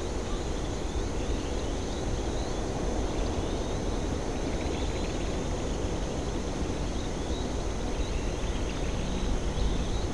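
Outdoor ambience: a steady low rumble with faint, scattered bird chirps and a thin, steady high-pitched tone.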